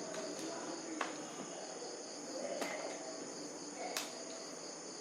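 A few sharp clicks of a small screwdriver working at a stuck screw in a plastic laptop bottom case, over a steady high chirring of crickets.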